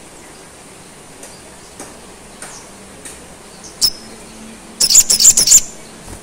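Male olive-backed sunbird giving scattered short, high chirps, then a loud, rapid run of high notes about five seconds in.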